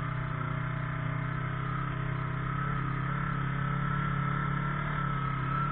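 Side-by-side UTV engine running at a steady speed, with a steady high whine over it.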